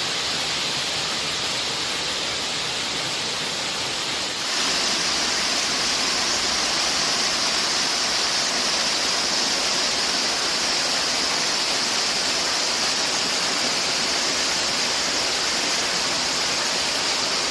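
Waterfall rushing steadily; about four and a half seconds in it becomes louder and brighter, then holds steady.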